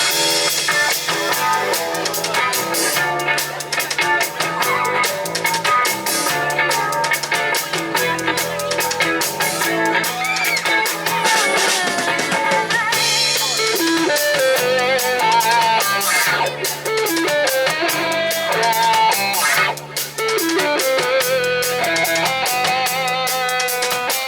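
Live band playing an instrumental break: a drum kit keeping a steady beat under a stepping bass line, with a lead guitar melody bending in pitch over the top.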